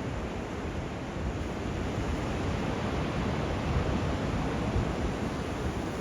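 Gusting wind buffeting the microphone over the wash of surf, a steady rumbling noise with no motor or other distinct sound in it.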